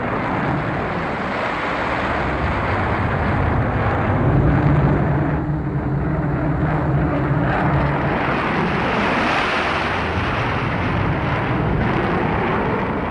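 Jet aircraft in flight: the steady roar of turbojet engines. A low drone swells in about four seconds in and fades a few seconds later.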